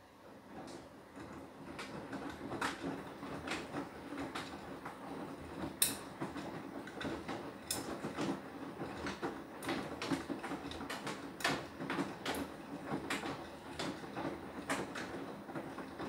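Beko WTK104121W washing machine drum tumbling its load during the anti-allergy cycle. It picks up over the first second or two, then runs on with a steady swish and irregular knocks as the laundry drops inside the drum.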